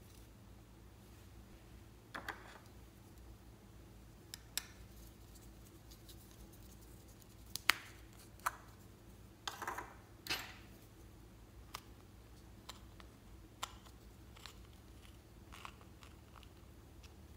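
Small hard plastic cases clicking and snapping as they are handled and pulled apart, with a metal tool scraping inside one. The clicks are scattered, the sharpest about eight seconds in and a quick cluster around ten seconds.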